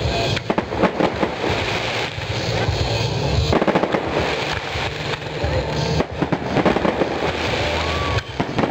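Fireworks display: rockets and aerial shells going off in rapid succession, a dense unbroken run of bangs and crackling.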